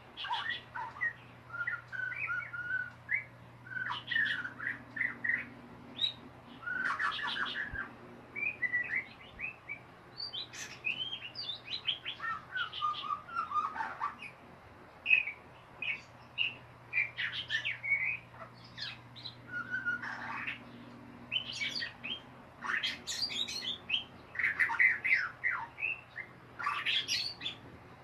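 White-rumped shama (murai batu) singing: a long run of short, varied phrases of rapid chattering notes and whistles, one after another with brief gaps, some notes sweeping high. A faint steady low hum runs underneath.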